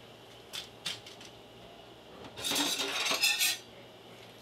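Kitchen utensils clinking twice, then about a second of louder clattering and scraping of metal utensils against pots and dishes.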